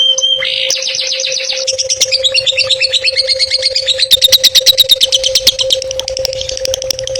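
Songbird singing a fast, chattering song: rapid runs of repeated high chirping notes, several a second, switching to a new pattern every second or two, over a steady low hum.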